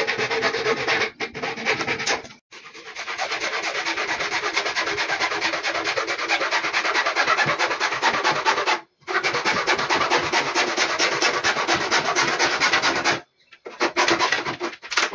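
Hacksaw cutting through PVC pipe with quick, rhythmic back-and-forth strokes, stopping briefly a few times.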